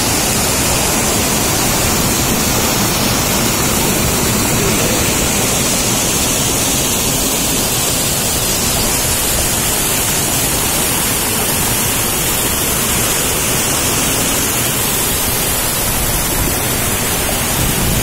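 Fast river water rushing over rocks in rapids: a loud, steady, unbroken rush of water.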